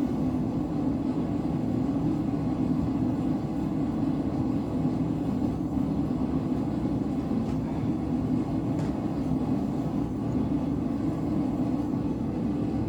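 Blacksmith's forge running with a steady, loud rushing rumble while a steel workpiece heats in it.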